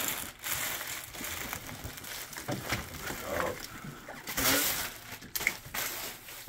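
Plastic packing wrap crinkling and rustling as it is pulled off and out from under a 3D printer, loudest about four and a half seconds in.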